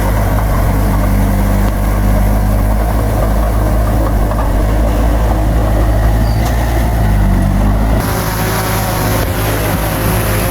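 Heavy diesel engine of an earthmoving machine running steadily with a deep rumble. About eight seconds in the sound changes abruptly and the deep rumble drops away.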